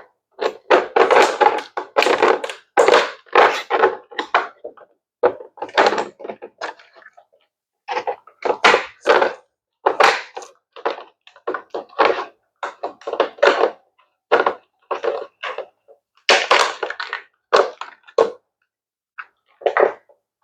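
Plastic hydroponic tower pieces being handled and fitted together by hand: an irregular clatter of knocks, clicks and scraping, with short pauses now and then.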